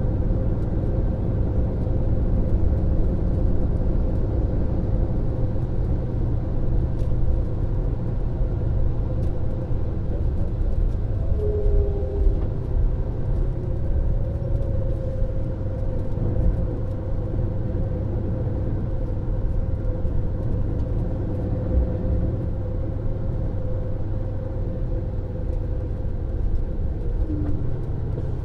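MAN Lion's Coach diesel engine running steadily: an even low rumble with a constant hum and no change in pitch.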